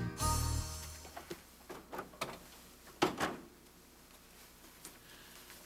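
Scene-change music ending in the first moment, then a few light clicks and knocks from a small fridge door and a mug being handled, the loudest knock about three seconds in.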